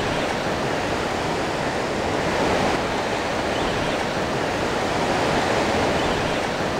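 Surf washing up the beach: a steady rush of breaking waves and foaming wash over the sand, swelling slightly a couple of times.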